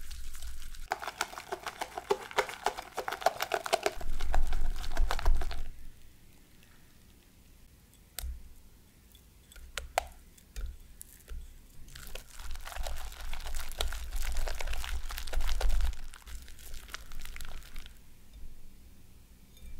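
Whisk beating egg yolks and sugar in a glass bowl in rapid scraping strokes, whisking them pale. Halfway through it quiets, with a couple of soft knocks as baked banana pieces drop into the batter. Then the whisk scrapes again as they are stirred through.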